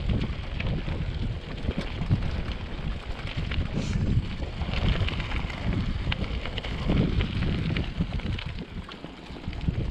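Wind buffeting the microphone of a riding mountain biker's action camera, over the clatter and rattle of the bike on rough trail, with many short knocks.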